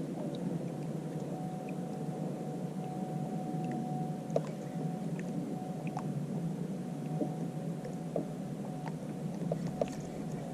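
Steady low rushing noise of a kayak on the water, with a faint steady whine and a few light clicks scattered through it.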